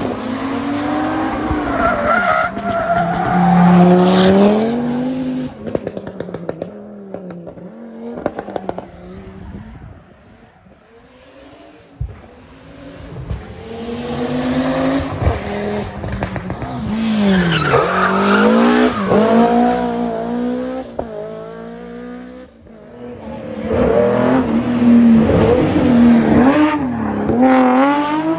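Rally car engines revving hard and dropping through gear changes as cars come through, with skidding tyres. There are three surges of engine noise, a quieter lull near the middle, and a brief patch of sharp crackles just before it.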